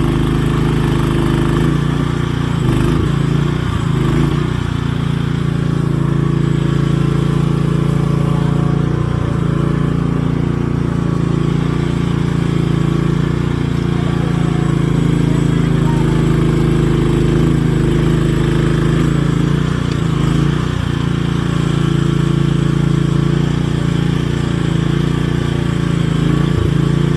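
An engine running steadily at an even, unchanging speed, holding one pitch.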